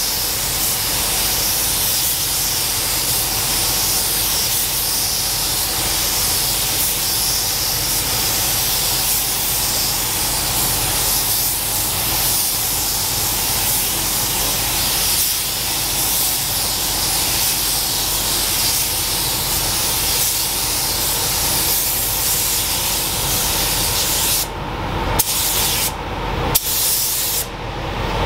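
Pneumatic paint spray gun hissing steadily as paint is sprayed. The hiss cuts out briefly three times near the end.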